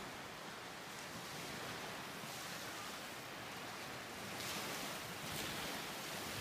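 Small lake waves washing onto a pebble beach, a steady rushing wash that grows louder after about four seconds.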